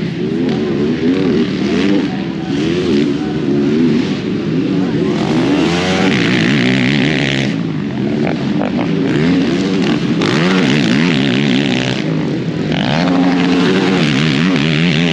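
Several racing ATV engines revving up and down, their overlapping notes rising and falling continuously as the quads race around the motocross track.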